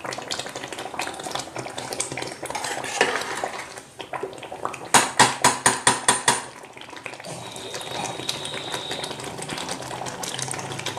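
Long metal spoon stirring and scraping through a pot of chicken-and-spinach kofta curry as it is fried down (bhuna). Midway there is a quick run of about eight sharp clacks of metal on the pot.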